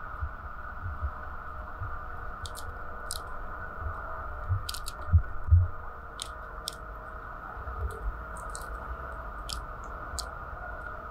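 A ripe pomegranate being broken apart by hand over a wooden cutting board: crisp little snaps and crackles as the rind and membranes tear and the seeds come loose. Two dull knocks about five seconds in are the loudest sounds.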